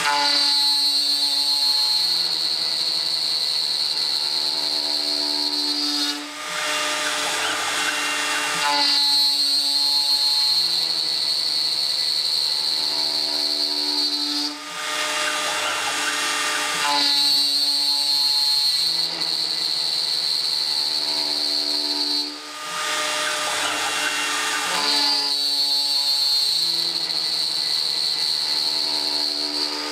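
CNC router's compact router spindle, at 8000 RPM, milling a metal bar with an end mill. Each pass has a high steady chatter whistle over the spindle's whine, and the sound dips briefly three times as the tool lifts up and over between passes. The chatter comes from too deep a cut, which the operator puts down to a lack of rigidity, probably in the machine.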